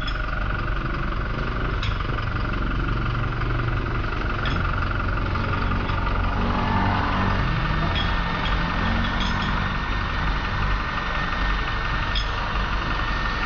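A motor running steadily, with a few faint light clicks over it.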